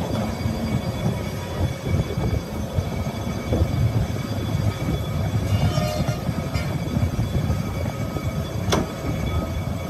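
Metal lathe running with a steady low rumble, with a sharp click near the end.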